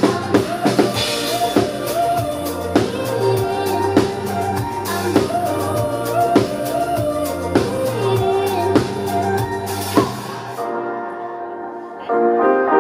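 Live pop band music with a drum kit keeping the beat under a melodic line. About ten seconds in the drums drop out and the music falls quieter, then it swells again near the end.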